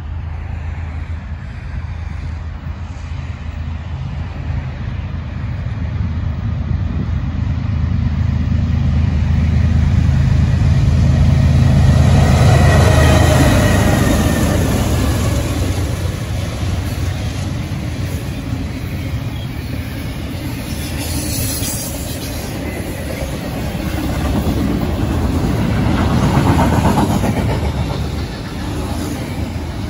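Diesel freight train passing close by: two GE diesel locomotives, a BNSF ES44C4 and an ex-CSX C40-8W, run past with a low engine drone that grows to its loudest about twelve seconds in and then falls away. Double-stack intermodal container cars follow, their wheels rolling over the rails.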